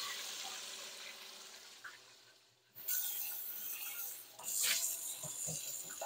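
Hot oil sizzling and bubbling around watermelon pieces frying in a pot. The sizzle fades, cuts out briefly about two and a half seconds in, then comes back with a swell near the five-second mark and a few light taps.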